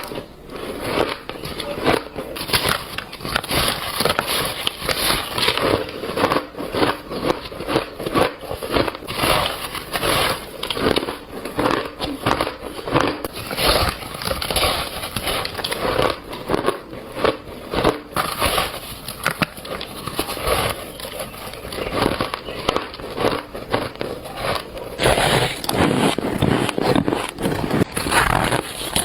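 Biting and chewing of shaved ice: a continuous run of squeaky, crunchy crackles.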